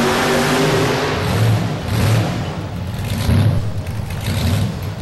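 Supercharged engine of a Dodge Rampage two-wheel-drive pulling truck running hard, then coming off the throttle about a second in and settling into a lumpy, uneven idle at the end of its pull.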